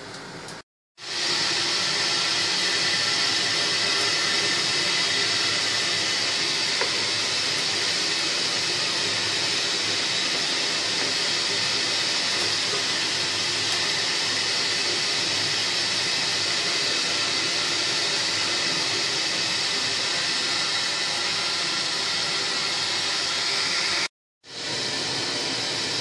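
Pot of sugar-and-water syrup heating on the stove, a steady loud hiss of liquid coming to the boil. It starts abruptly about a second in and cuts out for a moment near the end.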